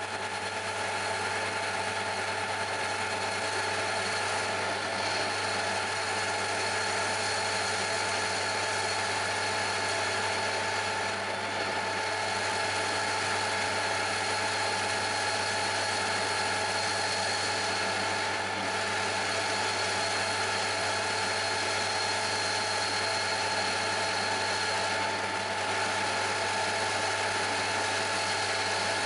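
Metal lathe running steadily with a constant hum and whine from its drive, as a turning tool takes a facing cut across the end of a small engine cylinder.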